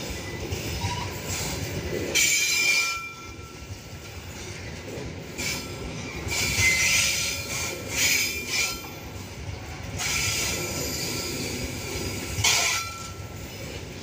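Long freight train of open-top wagons rolling past at close range: a steady rumble of wheels on rail, broken by short, high squeals from the wheels every second or two.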